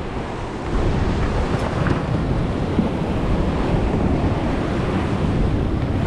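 Sea swell surging and washing over a rock ledge, with wind buffeting the microphone; the rush of water builds up about a second in and stays steady.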